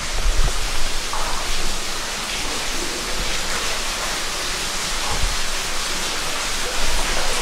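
Steady rushing hiss of flowing water in the cave, with a few low thumps near the start and about five seconds in.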